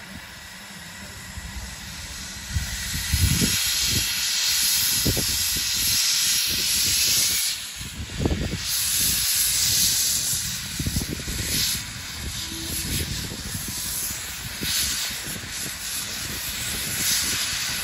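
Small industrial tank steam locomotive moving off slowly, hissing steam from its open cylinder drain cocks, the hiss growing louder a couple of seconds in, with slow, uneven exhaust chuffs underneath.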